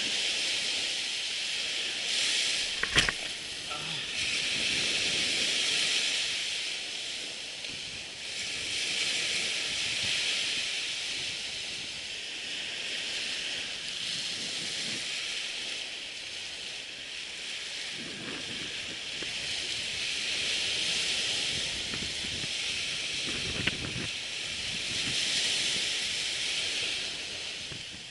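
Surf washing onto the beach: a rushing hiss that swells and fades every several seconds, mixed with wind. There is a sharp click about three seconds in and a smaller one near the end.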